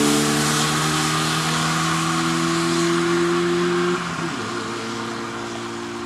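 Volkswagen Golf Mk2 race car accelerating away hard, its engine note rising steadily, dropping with a gear change about four seconds in, then climbing again while fading with distance. A hiss of tyre spray on the wet road runs underneath.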